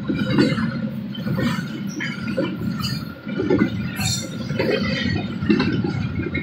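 Freight train of intermodal container cars passing a level crossing: a steady rumble of wheels on rail with uneven surges, and scattered metallic clinks and squeals from the cars.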